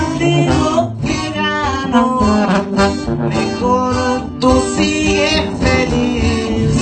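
Live band music: acoustic guitars strummed in a steady rhythm under a melody played on a wind instrument.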